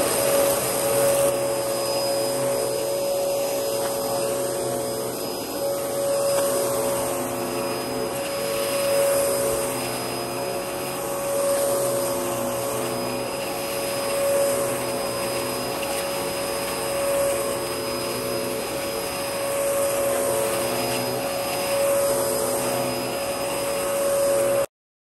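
Dyson DC14 upright vacuum cleaner running with a steady high motor whine, its level swelling and fading gently every couple of seconds. The sound cuts off suddenly near the end.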